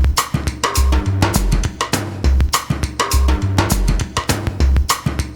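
Background music with a steady drum-kit beat and deep bass notes.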